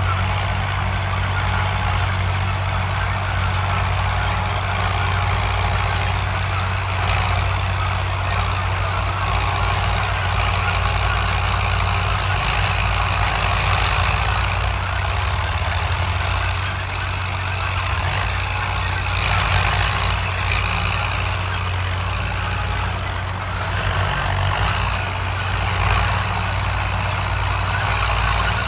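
Classic Fiat tractor's diesel engine running steadily under load while ploughing.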